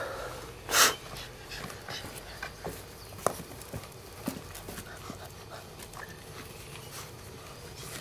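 Cane da Presa Meridionale puppies tussling over a toy: dog breathing and snuffling noises with scattered light scuffs and knocks. One loud, short noise about a second in.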